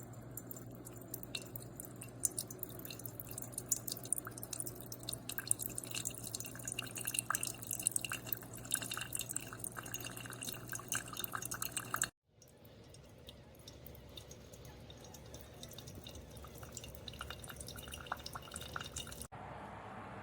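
Single-serve coffee maker brewing: coffee dripping and trickling into a cup over the machine's steady hum. The sound breaks off abruptly about twelve seconds in and again near the end, where the clip is cut.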